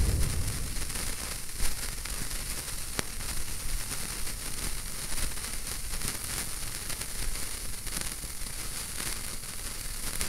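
Sparkler burning: a steady hiss dotted with quick little crackles as sparks spit from its molten tip.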